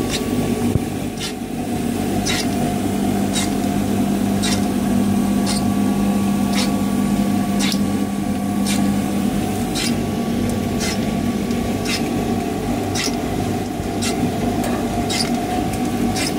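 Hotpoint WD72 washer-dryer running with its drum and pulley turning: a steady motor hum, with a sharp click repeating evenly about once a second. The hum eases about nine seconds in.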